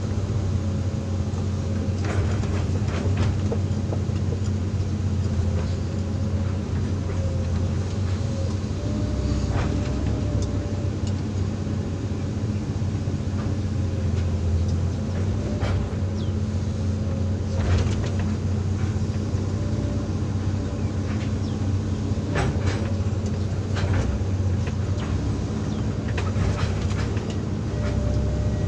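Hydraulic excavator's diesel engine running steadily at work, with a faint wavering whine over the low engine hum. Occasional sharp clanks and knocks, about eight, are spread through it.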